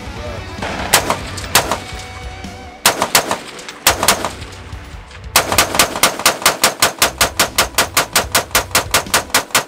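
Diamondback DB15 AR-15-style rifle firing: a few single shots spaced about a second apart, then from about five seconds in a rapid string of shots, about five a second.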